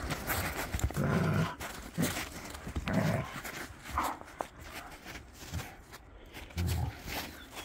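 Two dogs play-wrestling: short, low growls about a second apart, with panting and scuffling between them.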